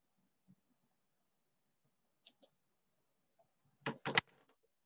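Computer mouse clicking while a slideshow is advanced: a quick, light double click about two seconds in, then three sharper clicks just before four seconds, with near silence between.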